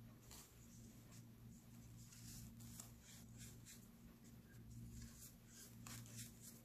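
Faint, dry crunching and scratchy crackling as hands crumble chunks of baked baking soda and rub the powder between the fingers, over a steady low electrical hum.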